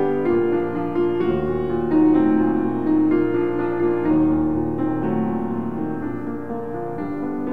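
Piano music with slow, held chords changing about once a second.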